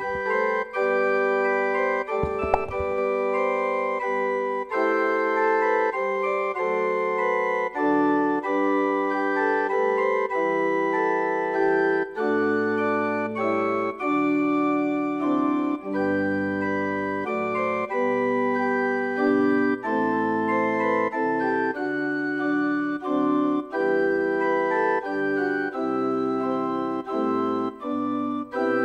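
Church organ playing the opening hymn in full, held chords, with brief breaks between phrases.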